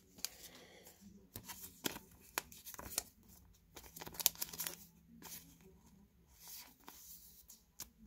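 Trading cards and their plastic wrapping or sleeves being handled: scattered light ticks, rustles and crinkles.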